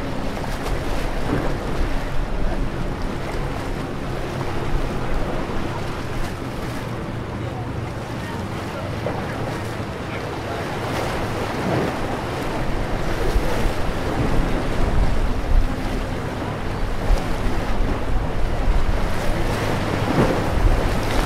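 Wind buffeting the microphone and harbour water lapping against the jetty, with a faint steady low mechanical hum underneath.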